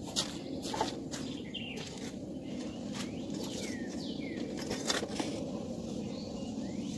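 Irregular rustling and scraping as soil and dying potato vines are turned over while digging potatoes out of a raised bed, with a few short bird chirps.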